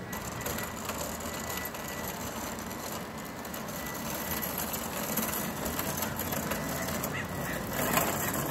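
Utility cart rolling over asphalt, its casters and shelves rattling, growing slowly louder as it comes closer.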